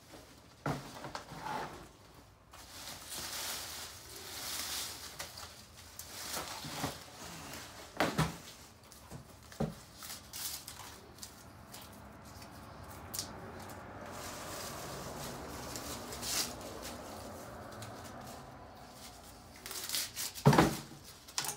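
Bay laurel sprigs and leaves rustling as they are handled and stripped from their stems by hand, with occasional sharp clicks and knocks, the loudest near the end.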